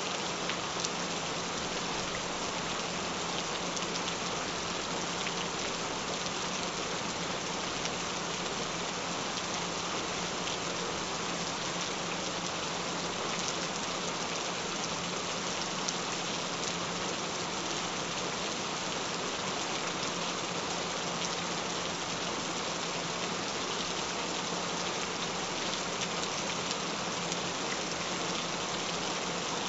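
Steady rain: an even hiss of rainfall with scattered drop ticks.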